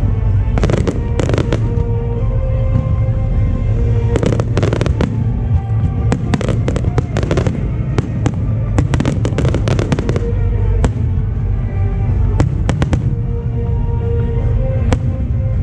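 Aerial fireworks bursting and crackling in quick succession, busiest in the middle, over music playing steadily underneath.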